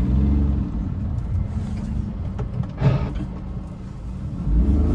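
Hyundai Eon car running, with a steady low engine and road rumble, a single knock about three seconds in, and the rumble swelling again near the end.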